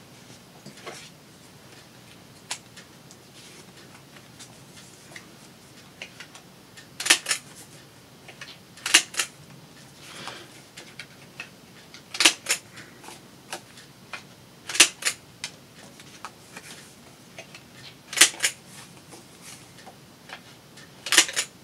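Corner rounder punch clicking through paper corners: six sharp double clicks a few seconds apart, with faint paper handling between.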